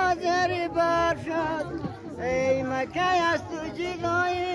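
Voices singing an old Hazaragi war bayt, a folk song sung in held, wavering notes that break every half second or so.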